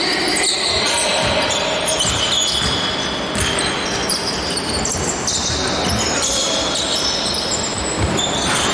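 A basketball being dribbled on a court, bouncing a little under a second apart, with high-pitched sneaker squeaks on the floor in between.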